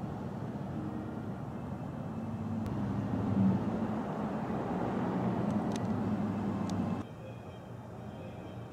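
A car engine running with road noise, a steady low hum that grows louder over the first few seconds. It cuts off abruptly about seven seconds in, leaving a quieter outdoor background.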